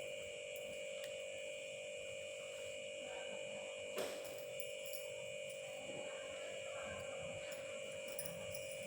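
A steady electrical hum with one short click about four seconds in.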